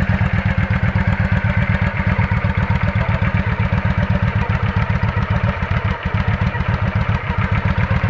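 Yamaha Virago XV400's V-twin engine running at steady low revs, its exhaust giving an even, pulsing beat.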